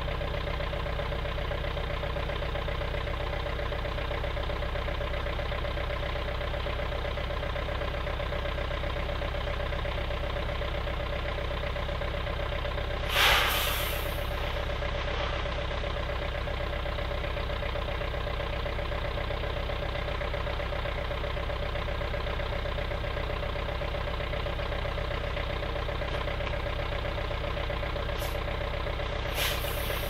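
All-terrain vehicle's engine idling steadily. A short loud noise cuts in about thirteen seconds in, and a briefer, fainter one comes near the end.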